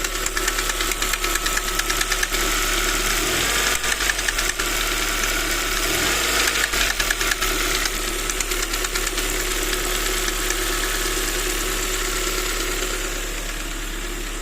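Ford Mondeo Mk3's 1.8-litre four-cylinder petrol engine running with a rapid, even knocking tick. The owner cannot tell what is making the knock.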